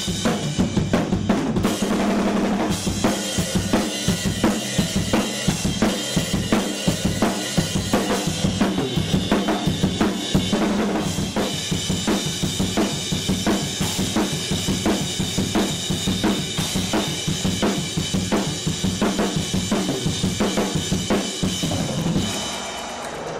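Rock drum kit played hard in a fast, driving beat: dense kick, snare and cymbal hits repeating without a break.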